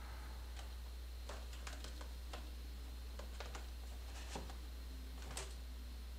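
Faint, irregular small clicks and taps as a cable plug and fingers handle the plastic projector housing and its mount, a dozen or so scattered through, over a steady low hum.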